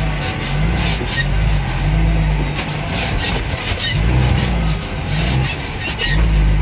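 Off-road truck engine running under load, its pitch rising and falling as the truck is driven along a flooded, muddy dirt track, with frequent short knocks and rattles over it.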